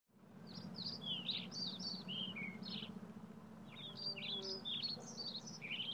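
A songbird singing two quick phrases of high chirps, the second starting nearly four seconds in, over a steady low hum.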